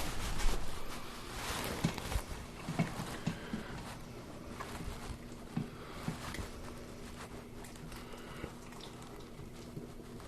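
Thick chicken-and-dumpling stew heating in an Instant Pot on sauté: scattered soft pops and clicks, most of them in the first half, over a faint steady hum.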